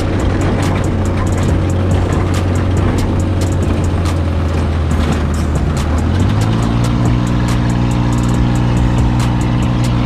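Off-road buggy engine running under way, stepping up to a higher, steady pitch about six seconds in, with frequent rattles and knocks from the ride over rough ground.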